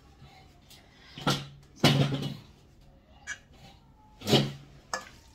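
Several separate knocks and clatters of kitchen things being handled and set down on a worktop. The loudest come about two seconds in, as a short cluster, and again just past four seconds.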